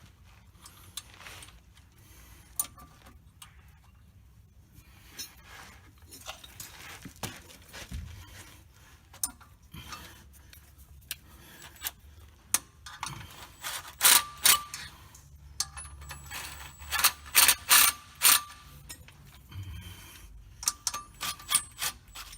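Hand tools working on metal clutch and transmission parts: scattered clicks and clanks, with a run of about eight loud, ringing metal strikes in the second half.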